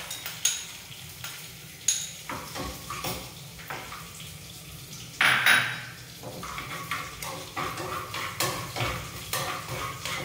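Spoon clinking and scraping in a small pan as a coconut-oil tempering of mustard seeds, dal, chillies and curry leaves is stirred over the gas flame. There is a short, loud burst of sizzling about five seconds in.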